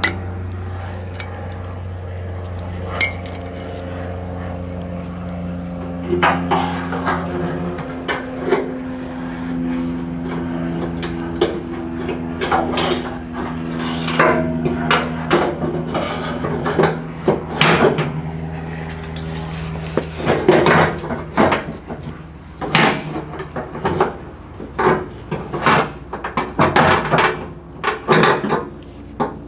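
Sharp metal clinks and knocks as a new fuel sending unit is worked into the gas tank's opening and its lock ring fitted, the taps coming thicker in the second half. A steady low hum runs underneath.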